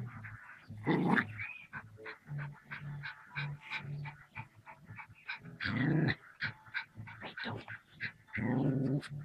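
Small dog growling and snarling in rapid short bursts as it attacks a snake, with louder outbursts about a second in, about six seconds in and near the end.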